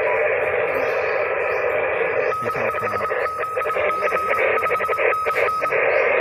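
Radio receiver hissing with static. About two seconds in, a Morse code (CW) signal comes through: a single-pitch beep keyed in dots and dashes for about three seconds.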